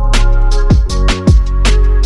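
Background electronic music: a punchy drum beat about twice a second over a deep bass line and held synth chords.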